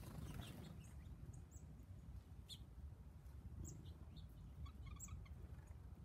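Small songbirds at backyard feeders giving a few faint, short, high chirps, with a brief run of lower chips about five seconds in, over a steady low rumble.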